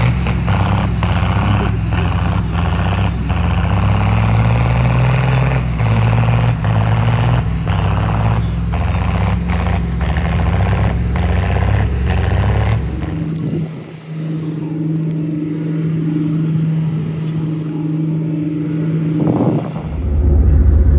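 Heavy diesel vehicles running hard as a tractor drags an ex-military REO truck across rough ground, with repeated knocks about once a second. About thirteen seconds in this gives way to an excavator's engine running with a steady hum, and near the end a loud low rumble sets in inside the Chieftain tank.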